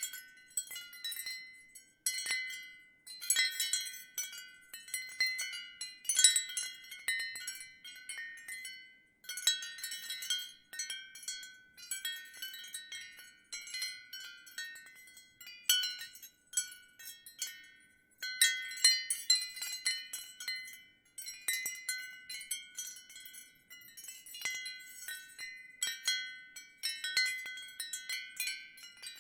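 Ceramic wind chimes stirred by the wind, clinking in irregular clusters of high, bright, briefly ringing tones, with short lulls between gusts.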